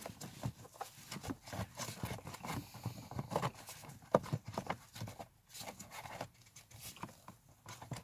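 A plastic-framed pollen filter knocking, scraping and clicking unevenly against its plastic housing as gloved hands push and work it into place. It won't seat because it is being fitted the wrong way round.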